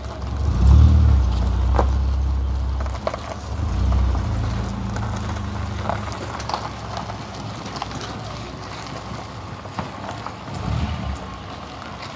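A low, steady engine-like rumble, loudest in the first few seconds, with a few short sharp clicks.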